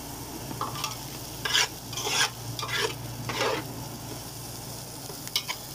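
Metal spatula stirring and scraping chopped onion, garlic and chilli in an aluminium pot, a run of short scrapes in the first few seconds and a few light clicks near the end, over the light sizzle of the aromatics sautéing in hot oil.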